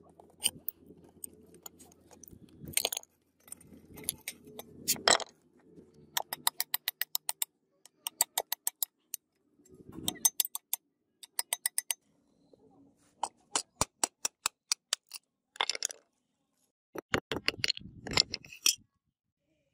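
Steel chisel being struck against a rusty cleaver's tang to split its old wooden handle off. Sharp metal clinks come singly and in quick runs of about eight taps a second.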